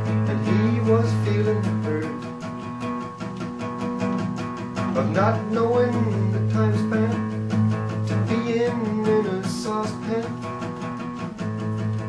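Acoustic guitar strummed in a steady rhythm while a man sings over it.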